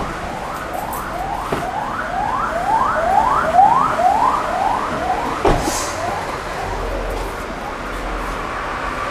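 Emergency vehicle siren sounding in quick repeated rising sweeps, about two to three a second. It swells and then fades away, as if passing by.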